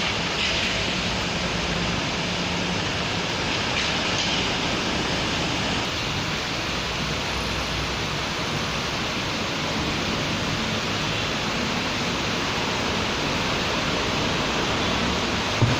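Steady rain falling in a city street, an even hiss. A short thump comes just before the end.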